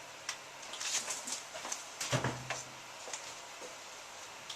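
Hotpoint 9534A washing machine heating on a Cotton 85 descaling wash: irregular clicks and taps, with a low hum near the start and again about two seconds in. The heater sounds smoother to the owners after descaling.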